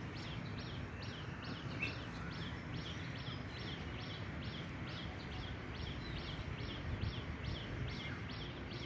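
A bird chirping over and over: short, high, falling chirps at about three a second, evenly spaced. Beneath them is a low, steady background hum.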